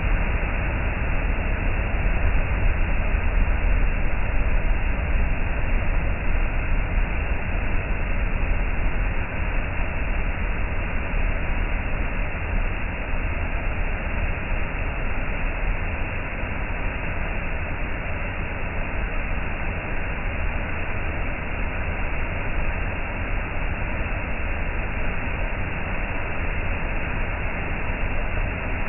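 Sandcut Falls, a waterfall pouring over a rock ledge onto a gravel beach, rushing with a steady, even noise that is heaviest in the low end.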